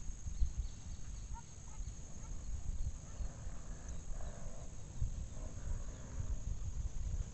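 Wind buffeting the microphone with a low, uneven rumble, under a steady high-pitched insect trill.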